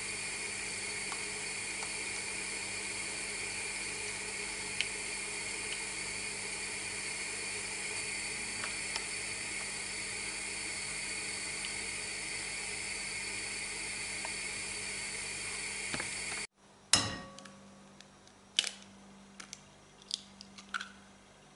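A steady motor hum with a high whine runs under the stirring and cuts off abruptly about three-quarters of the way through. A sharp knock follows, the loudest sound, then several light clicks and taps: an egg being cracked against a glass bowl and its shell halves handled while the white is separated.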